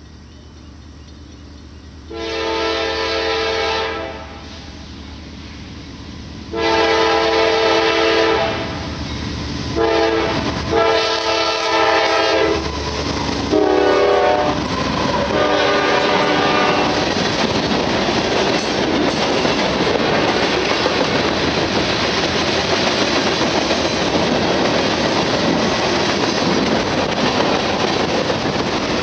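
Diesel freight locomotive's air horn sounding a series of chord blasts as the train nears a grade crossing: two long blasts, then shorter ones, the last fading as the locomotives pass. Then the GE C44-9W and ES44AC diesel locomotives and a long string of freight cars roll by with steady wheel clatter on the rails.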